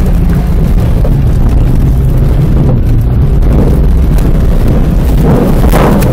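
Car engine running hard during a race, loud, with heavy wind buffeting the microphone. Its pitch shifts as the engine speed changes, and rises briefly near the end.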